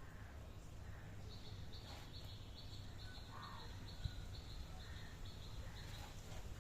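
A small animal chirping: a run of short, even, high chirps at about three a second, starting about a second in and stopping near the end, over a low steady rumble.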